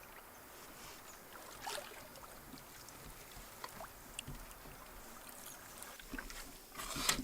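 Canoe paddling on a river, faint: the quiet swish of paddle strokes with a few small drips and ticks, and a louder splash of water near the end.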